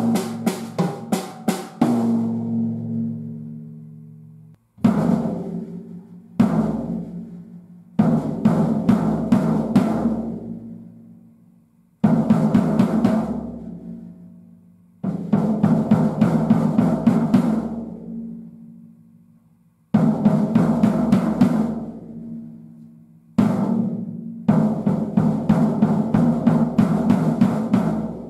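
Sonor Martini compact drum kit with a 14-inch bass drum, 8-inch tom, 13-inch floor tom, 12-inch snare and poplar shells, played in short phrases of fills and beats. Each phrase is left to ring out, the toms sustaining a pitched ring that fades before the next phrase starts.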